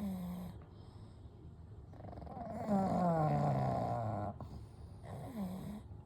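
Sleeping pugs snoring: a short snore at the start, a long, loud snore from about two seconds in that slides down in pitch, and a shorter snore near the end.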